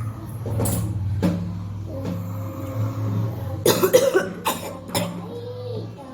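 A woman coughing deliberately, trying to bring up phlegm: a few single coughs, then a quick cluster of harder coughs about four seconds in, followed by two more single coughs.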